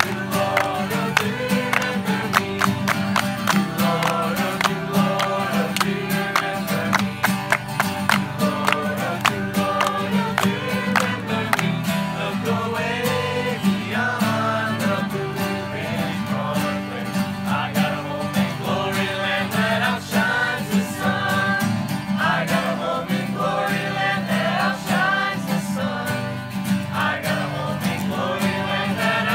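A group of voices singing a song together, accompanied by several strummed acoustic guitars.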